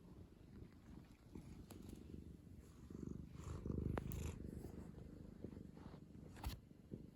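Domestic cat purring close to the microphone, a rapid low rumble that swells loudest about halfway through. Two sharp clicks stand out, one mid-way and one near the end.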